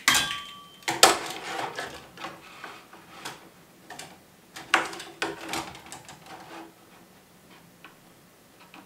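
Hand screwdriver driving a wood screw into a wooden tabletop: a run of clicks, knocks and short creaks that dies away after about seven seconds.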